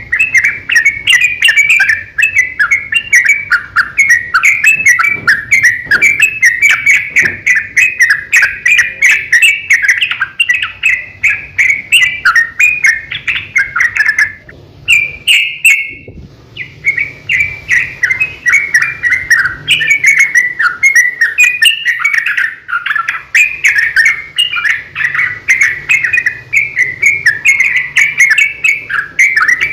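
Yellow-vented bulbul (trucukan) singing in long, rapid runs of bubbly chattering notes, with a brief break about halfway through.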